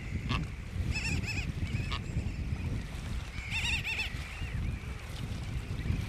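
Seabird calls: a quick run of high, wavering squawks about a second in and a longer cluster near the middle, over a steady wind rumble on the microphone.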